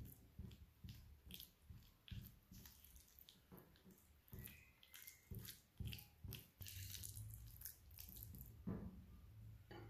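Metal spoon stirring ricotta and icing sugar in a glass bowl: faint, irregular soft squelches, scrapes and light clicks of the spoon against the glass. A low steady hum comes in about two-thirds of the way through.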